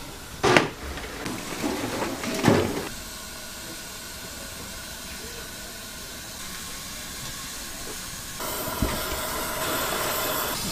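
A big pot of soup boiling hard over a gas burner, with a steady hiss of steam and flame. There are a couple of clanks in the first few seconds, and the hiss gets louder near the end.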